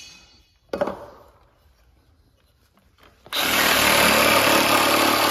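A compact Milwaukee cordless reciprocating saw with a fine-tooth blade starts about three seconds in and runs steadily, cutting through a foam faux beam. A short knock comes about a second in.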